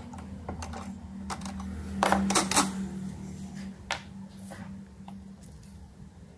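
Light metallic clinks and taps as the brass workpiece and the drill-press vise are handled, with a cluster of louder clinks about two seconds in. A faint low hum from the drill press fades away underneath.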